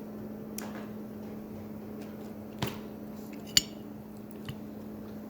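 Eating utensils clicking against plates a few times, the sharpest click about three and a half seconds in, over a steady low hum.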